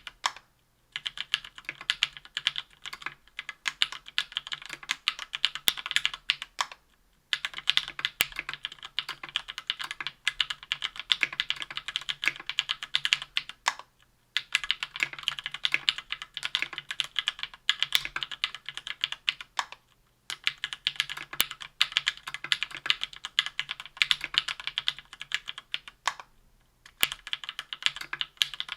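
Typing on a KBDfans Tofu 60% aluminium mechanical keyboard with lubed SP-Star White Meteor 57 g linear switches on an aluminium plate, under GMK Triumph Adler keycaps. Fast runs of keystrokes are broken by brief pauses about every six seconds.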